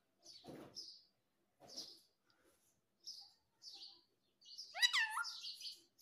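Indian ringneck parakeet giving a string of short, scratchy chirps, then a louder rising whistled call about five seconds in.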